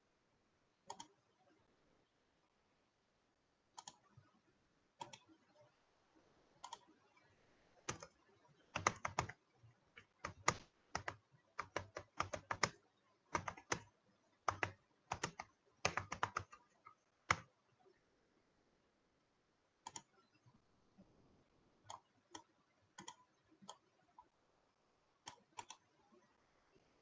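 Typing on a computer keyboard in a quick run of keystrokes for about ten seconds in the middle, with single mouse or key clicks spaced a second or more apart before and after.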